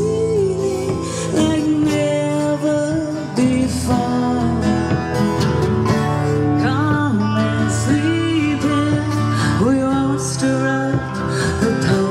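Live country music: a woman sings lead into a microphone over several acoustic guitars.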